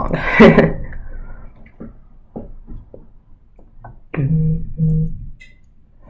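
The end of a spoken word, then a few soft clicks, then a person humming two short notes.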